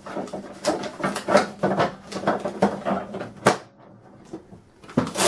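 Plastic printer cover of a Sam4S ER-180U cash register being handled and fitted back over the printer, a run of knocks and rattles with a sharp click about three and a half seconds in as it snaps into place, and another click near the end.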